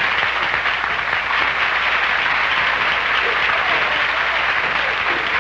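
Nightclub audience applauding steadily for a guest introduced from the stage, on an old live recording with a low hum underneath.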